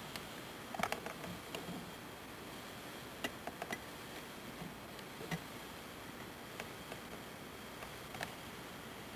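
Steady hiss with scattered, irregular faint clicks and ticks, the sort of handling and mechanism noise a hand-held camcorder picks up while it films.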